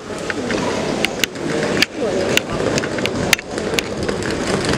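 Busy market-hall crowd: many people talking at once, with scattered sharp clicks and knocks among them.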